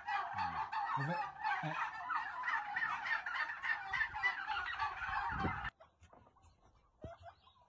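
A flock of domestic turkeys gobbling all together, a dense continuous chorus of overlapping calls that cuts off abruptly about six seconds in, leaving only faint scattered sounds.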